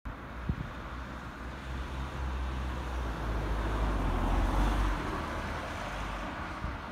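Low rumble of a passing vehicle that swells to its loudest about four to five seconds in and then eases off, with a single short knock about half a second in.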